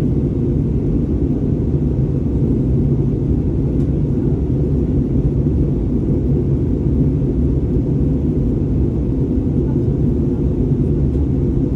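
Steady low rumble of an Airbus A320neo in operation, engine and airflow noise heard from inside the cabin, with no change in pitch or level.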